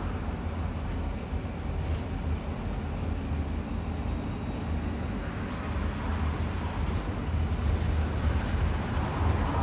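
Bus travelling on the road: a steady low rumble of engine and road noise, with a few faint clicks and rattles.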